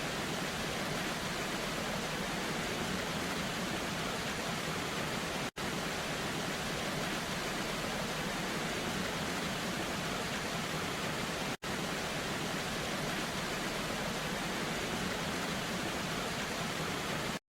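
Steady, even rushing noise with no tone or rhythm in it, broken by two split-second dropouts about six seconds apart.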